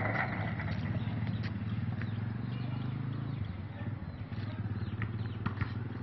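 Goat herd milling about on a gravel lot, with scattered short ticks and taps. Under it runs a steady low hum that eases somewhat past halfway.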